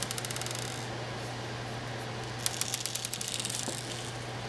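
Small shot pellets spilling from a cut-open 12-gauge shotgun shell and pattering onto a hard surface: two spells of rapid fine ticking, one at the start and one in the middle.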